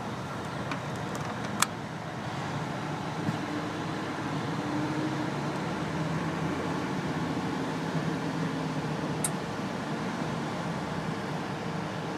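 CompAir air compressor running steadily: an even mechanical noise with a faint low hum. A sharp click comes about a second and a half in, and another about nine seconds in.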